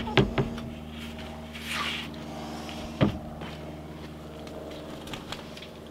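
A plywood panel being handled against a wooden chicken-coop frame: a few light knocks at the start, a short scrape near two seconds, and one sharp wooden knock about three seconds in. A steady low hum runs underneath.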